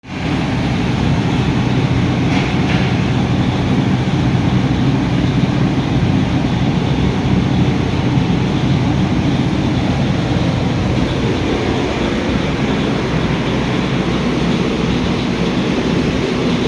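Ford Ranger 2.2-litre engine running steadily with a fast rhythmic knocking clatter, the knocking noise the owner is trying to trace.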